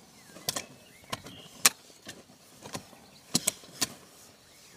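Heavy hand hoes striking the soil during hand digging: about seven sharp, irregularly spaced strikes, the loudest about a third of the way in.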